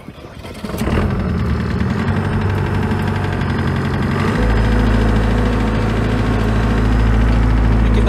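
Manitou telehandler's diesel engine starting up about a second in and then running steadily; about halfway through a deep low hum joins in and the sound gets a little louder as the boom joystick is worked.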